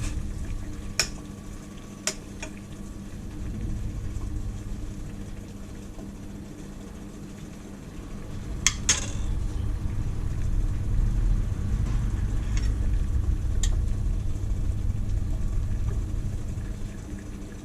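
Pan of water heating on a gas stove: a steady low rumble of the burner and near-boiling water that grows louder about halfway through, with a few sharp clinks of a utensil against the pan.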